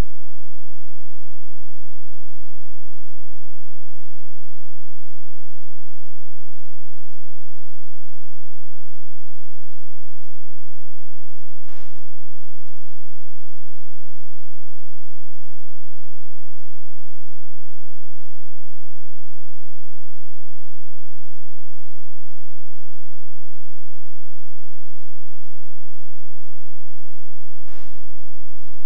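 Loud, steady electrical mains hum with a buzzy stack of overtones and no speech above it. Two sharp clicks cut through it, about twelve seconds in and again near the end.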